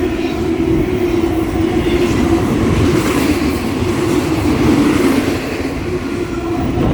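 Fast train passing close by: a loud, steady rumble of wheels on rail with a constant hum. The wheels clack from shelled treads, which the railfan calls bad shelling.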